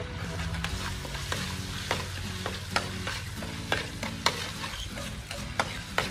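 Metal spatula scraping and knocking against a steel wok as something fries and sizzles in it, with sharp clicks of the spatula on the pan every second or so over a steady hiss.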